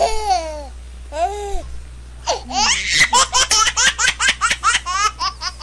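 People laughing: a couple of short vocal sounds, then from about two seconds in a long fit of rapid ha-ha laughter.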